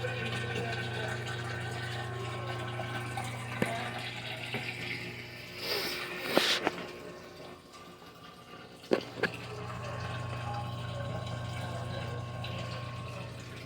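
GE washing machine filling with water: water running into the tub over a steady low hum. The hum stops for several seconds midway and then comes back. Several sharp knocks and a louder clatter fall while it is off.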